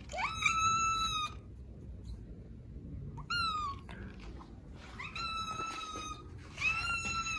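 Black kitten meowing insistently to be fed: four meows. The first is long with a rising start, the second short with falling pitch about three seconds in, and two more long meows follow near the end.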